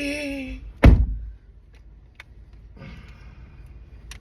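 The end of a shouted "Yeti!", then a single loud thump about a second in, followed by faint scattered clicks and a brief rustle.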